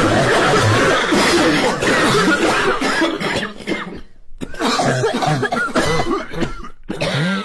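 A large crowd of people coughing at once, a dense jumble of overlapping coughs. It thins and drops out briefly about four seconds in, then picks up again.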